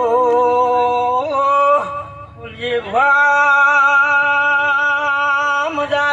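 A man singing a devotional dhun, drawing out long held notes that waver slightly, with a short break about two seconds in.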